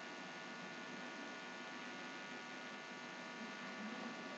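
Faint steady electrical hum with hiss.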